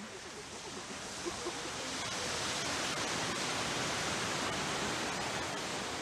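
Sea surf washing up a sandy beach, a steady rush of water that swells about two seconds in and eases off near the end.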